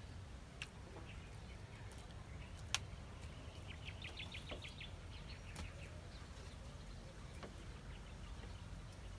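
Faint outdoor rural ambience: a steady low rumble, a few sharp clicks, and a short, rapid bird trill about four seconds in.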